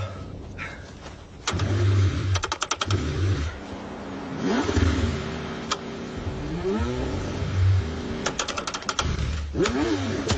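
A car engine being cranked over and over in the cold without catching: low rumbling with two bursts of rapid clicking.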